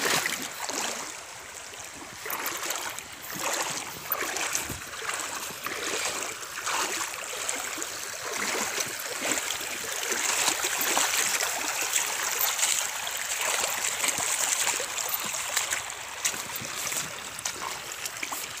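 Legs wading through a shallow, rocky river: water sloshing and splashing in an uneven rhythm of steps over the steady rush of the stream.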